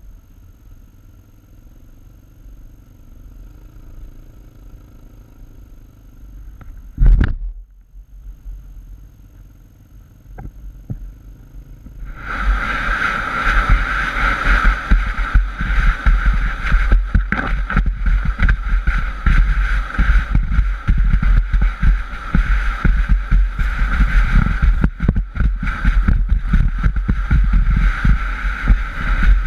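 A sandboard being towed over dune sand. It is quiet at first, with a sharp thump about seven seconds in. From about twelve seconds on, the board sliding fast over the sand makes a loud, steady rushing scrape, with rumbling wind buffeting the board-mounted microphone.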